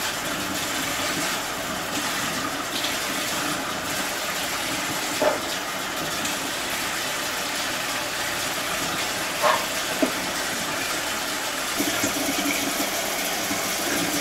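Water running steadily from a tap into a kitchen sink during a baby's bath, with a few short sounds over it about five and nine to ten seconds in.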